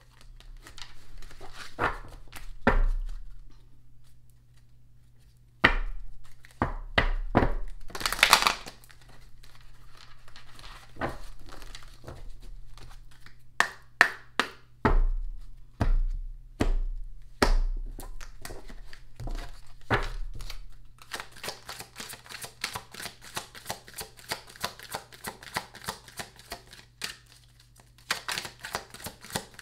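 Tarot cards being shuffled by hand: scattered taps and knocks of the deck in the first part, then from about twenty seconds in a quick, even run of flicking clicks as the cards are shuffled.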